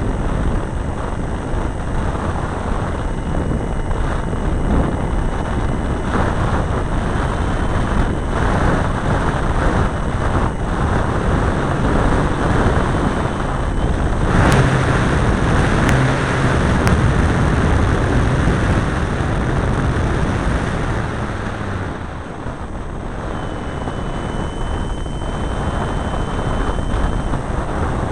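Engine and propeller of a large RC model airplane running in flight, heard from a camera mounted on the plane, with wind rushing over the microphone. The sound swells somewhat about halfway through and eases back a few seconds later.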